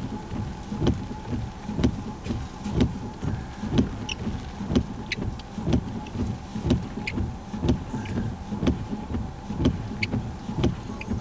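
Inside a stopped vehicle: a steady low rumble with a regular thump repeating about once a second.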